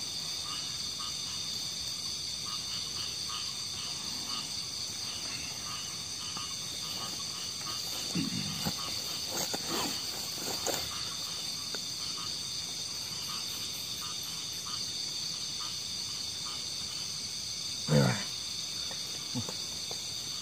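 Night insects, crickets, chirring steadily. A person gives a few short low groans about 8 and 10 seconds in, and a louder one near 18 seconds.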